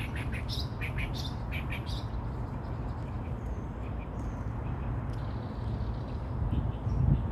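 A songbird chirping in quick clusters of short, high notes, busiest in the first couple of seconds and again near the end, over a steady low background rumble.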